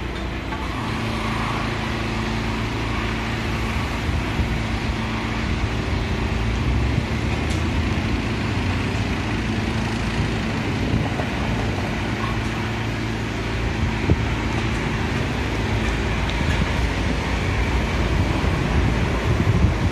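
Steady city traffic noise: a continuous low engine rumble and hum under a general street wash.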